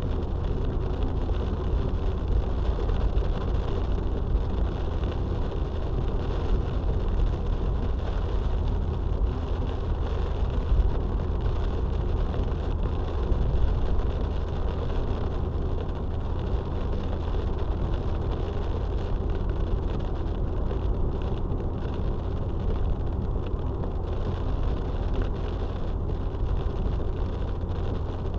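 Steady low rumble of road and engine noise inside a moving car, recorded by a dashcam.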